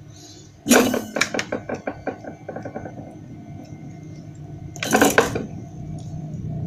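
A quick run of small clicks and rattles, loud at first and thinning out over about two seconds, then a short scrape about five seconds in, from handling a perforated circuit board while fitting a resistor's leads onto a triac. A low steady hum runs underneath.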